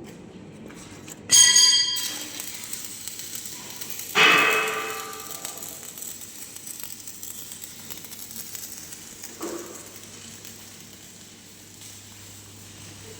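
Metal struck twice, ringing out and dying away over about a second each time, then a fainter knock later; a low steady hum runs underneath.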